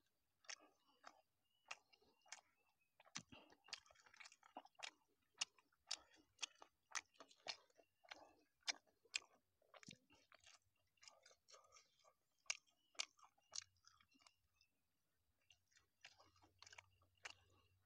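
A person chewing a mouthful of sticky rice and fermented sour beef (som neua) close to the microphone. It comes through as quiet, irregular wet clicks and smacks, about two a second.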